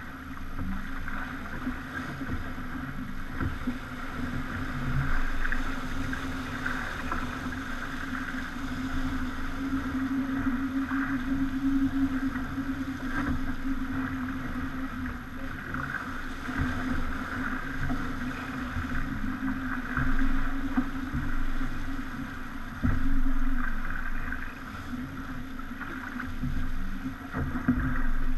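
Yacht under way at sea: water rushing and slapping against the hull, with a steady low hum and irregular louder surges.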